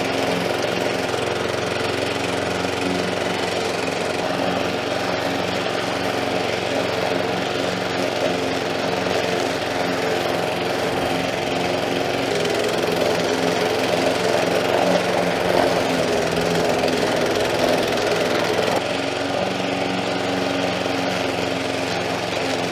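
Grin PM53A KW petrol mulching mower running steadily at cutting speed while being pushed through long grass, its engine note shifting slightly now and then under the load.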